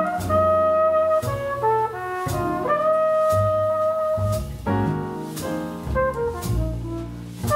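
Live jazz quartet: flugelhorn playing long held melody notes over piano chords, plucked double bass and regular cymbal strikes.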